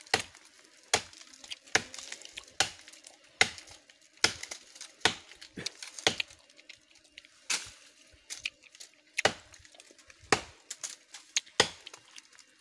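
Repeated chopping strikes of a hand tool hacking into the wood of a tree stump, about one blow a second.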